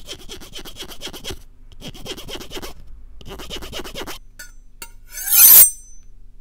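Folding pocketknife being worked by hand at the microphone: three runs of rapid ratcheting clicks, as of a thumbnail dragged along the knife's spine or handle. About five seconds in comes a louder rasping scrape of a blade.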